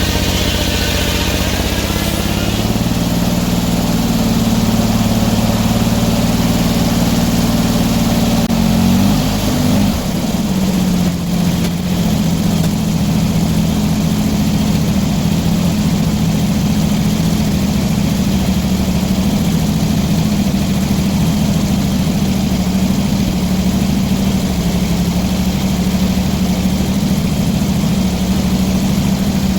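Sawmill's engine running steadily, with a high whine over it that fades out in the first couple of seconds. About nine seconds in, the engine's pitch drops and it settles at a lower, steady speed.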